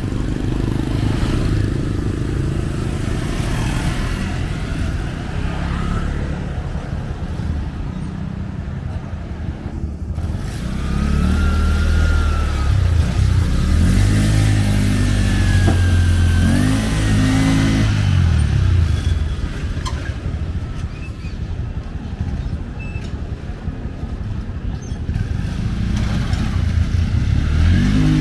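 Street traffic of motorcycles and cars passing. About halfway through, a motorcycle engine passes close, louder for several seconds, its pitch rising and falling. Another vehicle approaches near the end.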